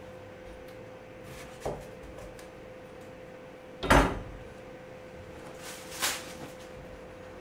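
Kitchen knife cutting the stem end off an eggplant on a plastic cutting board: one sharp chop about four seconds in, the loudest sound, with a lighter knock before it and another near six seconds. A faint steady hum runs underneath.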